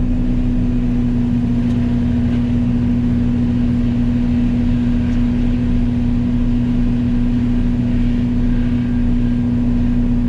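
Yanmar Vio80 excavator's diesel engine and hydraulics running steadily under load, driving a Fecon FMX36 forestry mulcher head at working speed. A strong constant hum carries through without a break.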